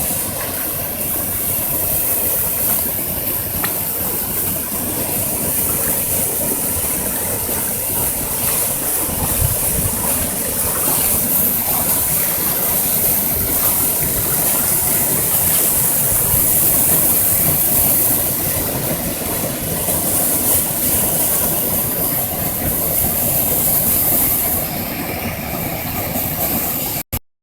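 Waterfall rushing: a loud, steady roar of falling water with a strong hiss, cutting off suddenly near the end.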